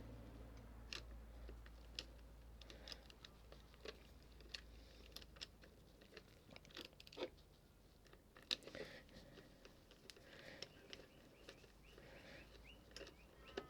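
Faint, irregular small clicks and light scrapes of a hand tool working the negative battery terminal bolt loose on a motorcycle battery.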